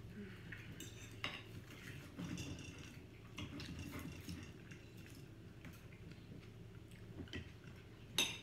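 Knife and fork scraping and clicking on plates as steak is cut, in scattered short strokes, with a sharper, louder clink just before the end.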